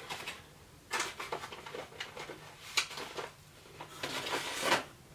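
A plastic jerky bag being handled and opened, with crinkling and rustling in short bursts about a second in, near three seconds, and a longer rustle near the end.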